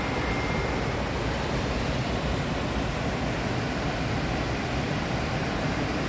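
Waterfall running steadily: water cascading down a rock chute into a pool, an unbroken even rush of noise.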